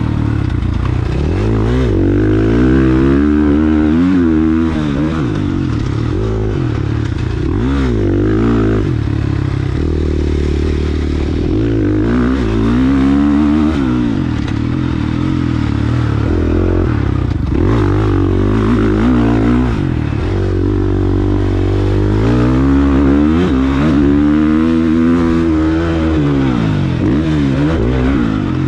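450cc single-cylinder four-stroke motocross bike ridden hard, its engine revs climbing and dropping over and over as the rider accelerates, shifts and backs off through the track's turns.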